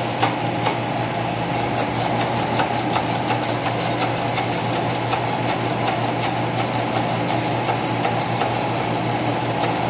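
A machine motor running steadily, a constant hum with a regular clicking over it.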